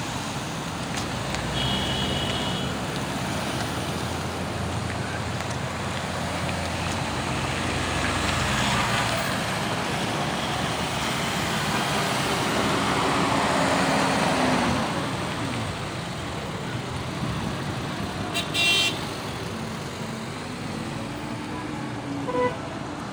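Convoy of jeeps and SUVs driving past, a steady wash of engine and tyre noise that swells and fades as vehicles go by. A short horn toot sounds about two seconds in, and a brief sharp louder sound comes near the end.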